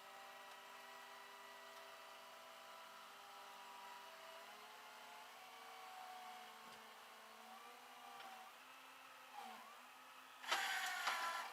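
A vehicle engine running steadily with a faint whine that drifts slowly in pitch, then a brief, much louder sound lasting about a second near the end.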